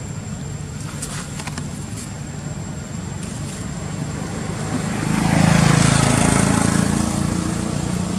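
A motor vehicle passing on a nearby road, growing louder about five seconds in and fading near the end, over a steady low rumble of traffic.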